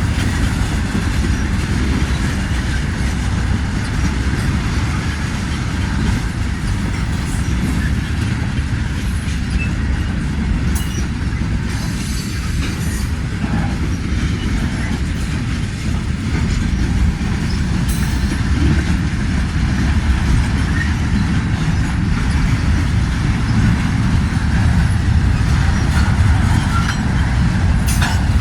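Freight cars of a slow-moving manifest train rolling past at restricted speed: a steady rumble of steel wheels on the rails.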